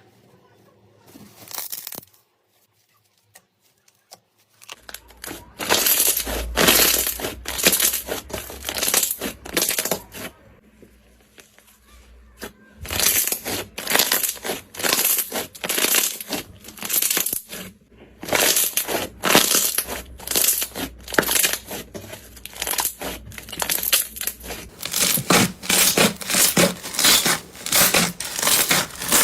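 Hands squishing and pressing slime: a run of crackly squelches, about two a second, that starts about five seconds in and goes on with short pauses.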